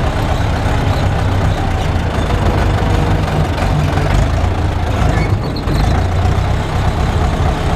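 Tractor engine running steadily, heard from inside the cab while the front loader works.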